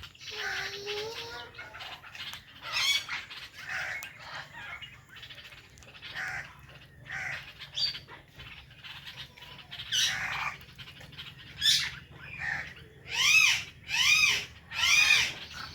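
Indian ringneck parrots chirping and squawking in a run of short calls, with a few loud, arching squawks near the end.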